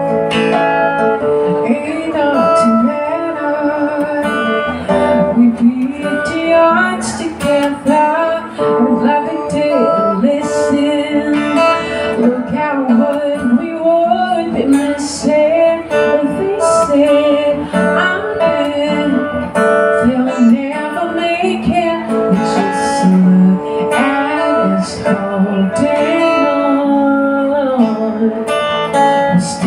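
Acoustic guitar strummed and picked as accompaniment to a sung melody, live through a microphone.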